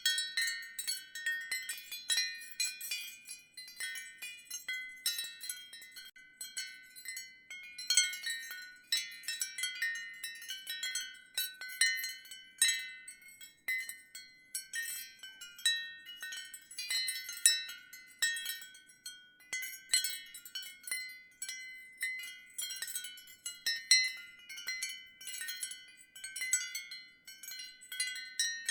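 Ceramic wind chimes clinking and ringing, with many irregular, overlapping strikes and clear high tones.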